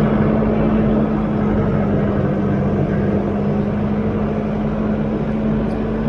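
Toyota Hilux D-4D diesel pickup driving slowly over beach sand: a steady engine hum with tyre and wind noise.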